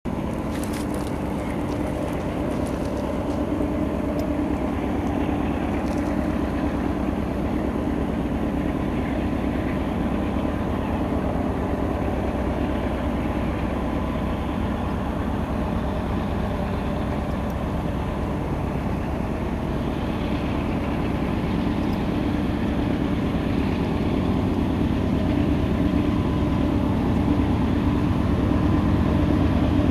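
GE Dash 9-40CW diesel locomotive's 16-cylinder engine working at full throttle, hauling a freight train up the grade. A steady, deep engine drone that grows gradually louder as the locomotive approaches.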